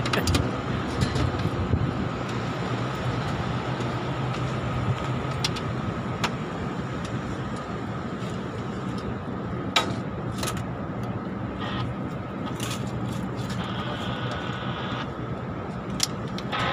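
Steady mechanical hum at one unchanging pitch, with a few sharp clicks and taps scattered through it.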